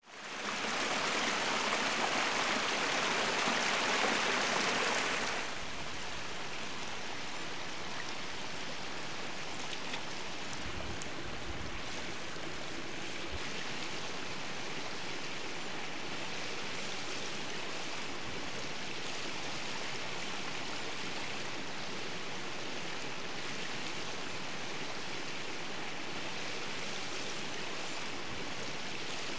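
A mountain stream running over rocks: a steady, even rush of water, louder and brighter for the first five seconds, then settling to a lower steady level.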